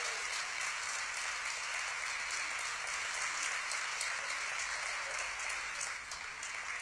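Crowd of football supporters in a stadium grandstand applauding, a dense steady clapping that eases slightly near the end.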